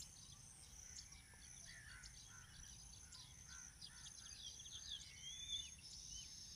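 Near silence: faint background of small birds chirping over a steady high insect buzz, with a few slightly louder chirps about five seconds in.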